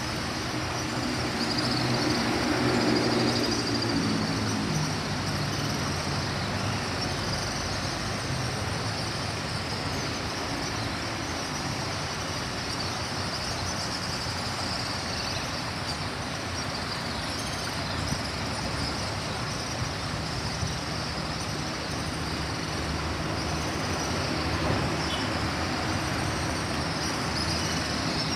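Steady rush of river water churning over rocks, with a vehicle engine passing about one to five seconds in, the loudest stretch, and another from about twenty-two seconds to the end.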